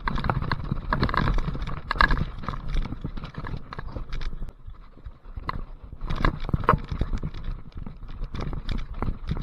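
Mountain bike ridden down a muddy trail: tyres rolling and squelching through mud, with a steady run of irregular knocks and rattles from the bike over rough ground, loudest in the first couple of seconds and again about six seconds in.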